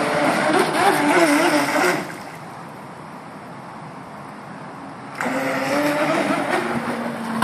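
Electric remote-control speedboat's motor whining under throttle, its pitch wavering. The throttle is let off about two seconds in, then opened up again about five seconds in.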